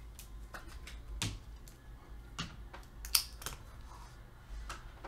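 Irregular clicks and taps on a computer keyboard, about a dozen strokes, the sharpest one about three seconds in, over a low steady hum.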